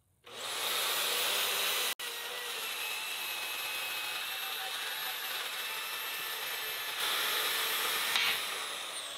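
Vevor portable metal-cutting bandsaw starting up and cutting through steel pipe, a steady high-pitched running whine with the blade rasping through the metal. Near the end there is a short loud knock as the cut finishes, then the motor winds down with a falling whine.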